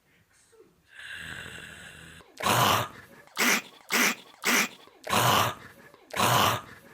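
A softer steady rasp about a second in, then six loud, rasping snorts in quick succession.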